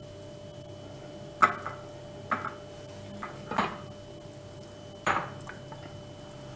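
Kitchenware clinking: four sharp knocks with a short ring, a second or so apart, the first the loudest, as the bowl of cheese filling and the baking tray are handled. A faint steady hum lies underneath.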